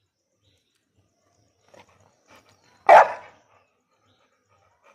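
Rottweiler giving a single loud, short bark about three seconds in.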